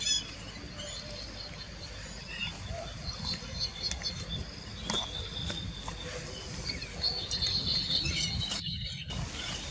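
Forest undergrowth ambience: high insect chirping coming and going over a steady low rumble, with a few light clicks and rustles. The sound drops out briefly near the end.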